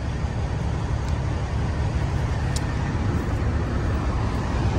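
Semi truck's diesel engine and drivetrain running with a steady low rumble.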